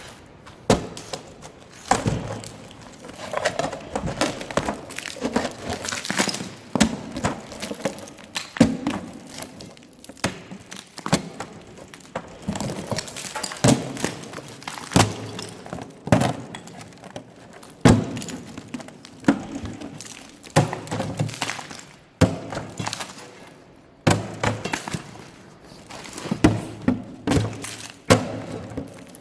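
Repeated irregular blows of a tool on an old safe, breaking away its fireproofing lining to reach the inner steel box, with cracking and crunching of broken material between the strikes, roughly one strike every second or two.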